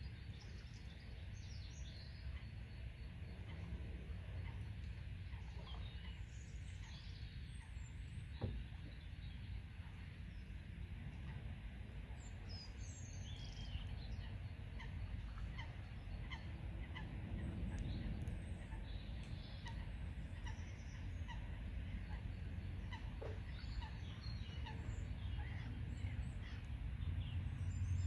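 Small birds chirping and singing, many short scattered calls, over a steady low rumble.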